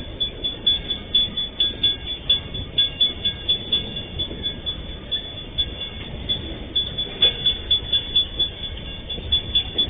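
Freight train wagons rolling past, with a rhythmic clack of wheels repeating about two to three times a second over a steady rumble.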